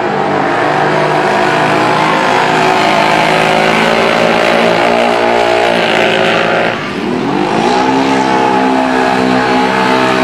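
ATV engines running hard at full throttle in a side-by-side drag race. About seven seconds in the sound dips briefly, then the engines' pitch climbs steeply again as they rev up.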